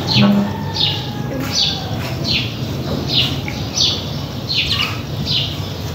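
Oil sizzling as besan dumplings deep-fry, with a short high chirp repeating about every 0.7 seconds over it.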